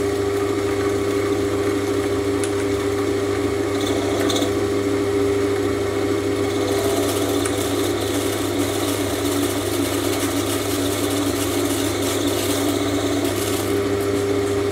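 Sieg C3 mini lathe running steadily with a constant motor whine and hum, while a carbide turning tool scrapes into a spinning ferrocerium (ferro) rod. The scraping rasp becomes denser from about halfway in as the cut throws sparks.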